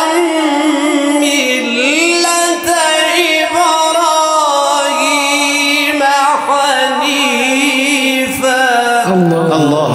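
Male Quran reciter chanting tajweed-style recitation, drawing out the verse ending in a long, ornamented melodic line with wavering and gliding pitch. Near the end a man's lower speaking voice takes over.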